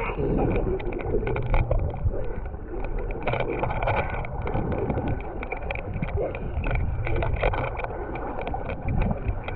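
Lake water splashing and sloshing close to the microphone as a child swims toward it with thrashing arm strokes, many sharp little splash crackles over a low rumble of water and wind against the microphone.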